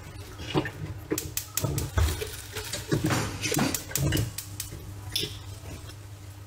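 Light kitchen clatter: scattered short clicks and knocks of dishes and utensils being handled, over a steady low hum.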